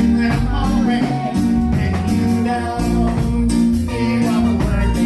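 Reggae song playing: a sung vocal over a steady bass line and drums.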